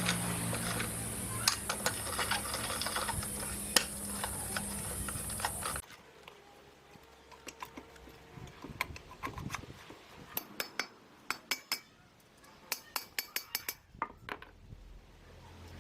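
Small metal parts and hand tools clinking and tapping, a run of sharp light clicks. Over the first few seconds a steady hum with hiss runs under the clicks and cuts off abruptly.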